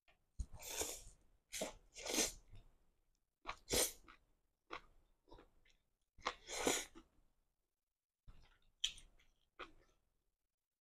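Slurping stir-fried flat rice noodles off chopsticks: four loud slurps in the first seven seconds, with softer chewing and mouth sounds between and after.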